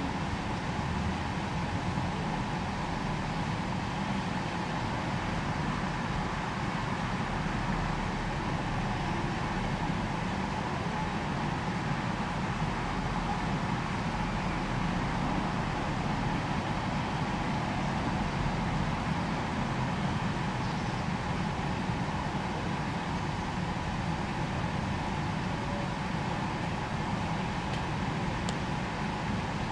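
Steady background noise: a low rumble with hiss and a faint steady hum, like distant traffic, with no distinct sounds standing out.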